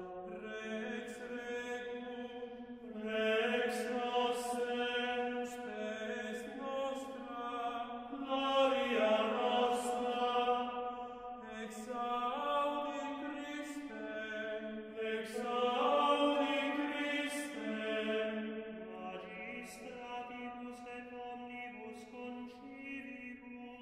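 Gregorian chant: voices singing a slow melody in unison, holding each note and stepping from one pitch to the next. It grows fainter over the last few seconds.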